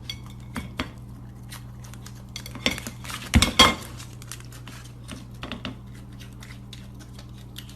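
Scattered light clicks and clinks of small hard objects, with a few louder knocks about three and a half seconds in, over a steady low hum.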